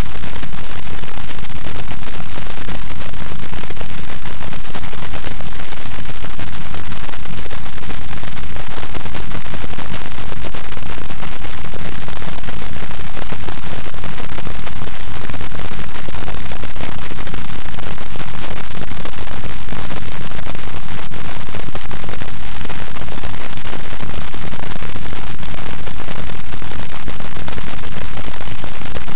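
Loud, constant static noise covering the whole frequency range with a fine crackle, unchanging throughout. It is the sign of a faulty or corrupted audio track, with no speech coming through.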